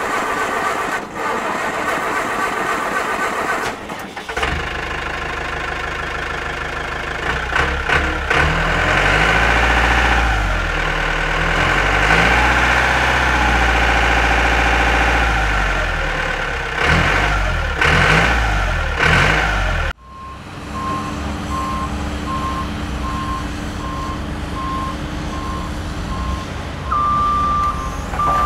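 Heavy vehicle engine sound effects: an engine running, revving up and down in pitch, then cutting off suddenly about two-thirds through. A second engine idles on with a steady series of reversing beeps.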